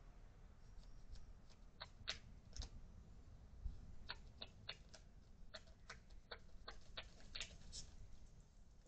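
Small dogs yipping as they play: about a dozen short, high yips at irregular times, faint and distant.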